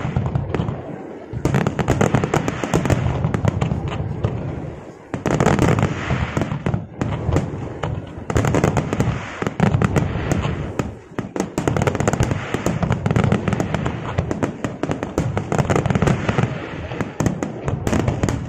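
Aerial fireworks display: rapid, overlapping shell bursts booming and crackling almost without pause, with a few brief lulls.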